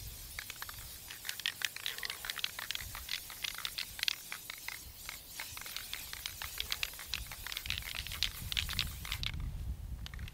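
Aerosol spray paint can hissing almost without a break as paint is sprayed through a tuft of dry grass held against the rifle as a stencil, with many sharp crackles from the dry grass stems; the spray stops about a second before the end.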